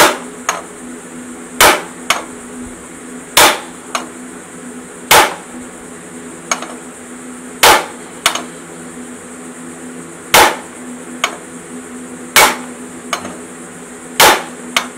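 Heavy hammer striking the centre bolt of a flywheel puller on a classic Mini engine: about eight hard metal-on-metal blows, roughly one every two seconds, most followed by a lighter tap. The blows shock-load the tightened puller to break the flywheel loose from the crankshaft taper, and it is still pretty tight.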